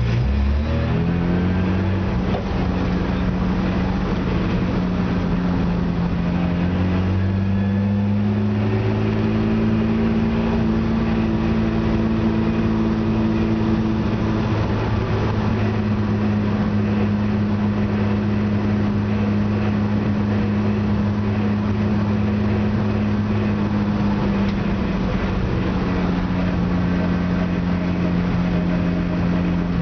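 BMW E30 race car's straight-six engine running at low, steady revs while the car moves at walking pace, heard from inside the stripped, caged cabin. The pitch steps up slightly about seven seconds in and settles back lower near the end.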